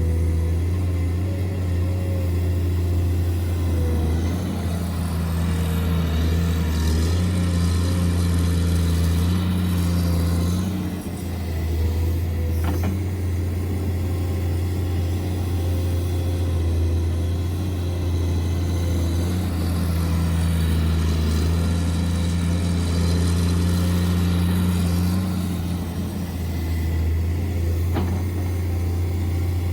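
Steady, low engine drone, like a diesel running at a steady speed, easing off briefly twice and then coming back.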